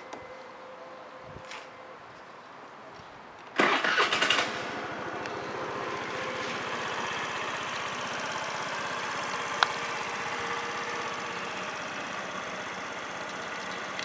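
Ignition key turned with a click, then about three and a half seconds later a 2011 Honda Giorno AF70 scooter's 49 cc four-stroke single-cylinder engine is cranked and catches within about a second, settling into a steady idle. The engine is in good running order. A single sharp click sounds partway through the idle.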